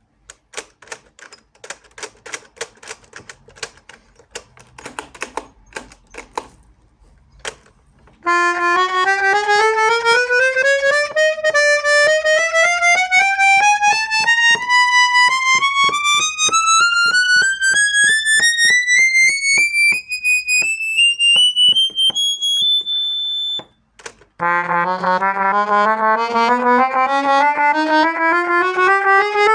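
Hohner Morino 4M piano accordion. It begins with a run of soft clicks from the keys and mechanism. Then it plays a rising chromatic scale up the treble keyboard with several reed sets sounding together, one note about every third of a second, ending on a held top note that cuts off. A second rising scale then starts about an octave lower in another register.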